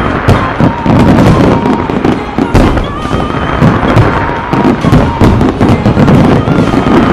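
A dense barrage of aerial fireworks bursting in rapid succession, loud booms and crackling packed several to a second with no break.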